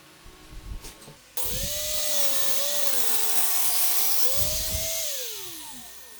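Angle grinder working wood: it comes in abruptly about a second and a half in with a loud hiss over its motor whine. The whine dips and rises again, then falls away as the grinder winds down near the end.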